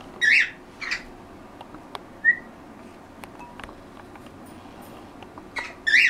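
Pet parrots calling: two short sharp calls, a brief whistled note about two seconds in, then two more sharp calls near the end, with a few faint ticks between.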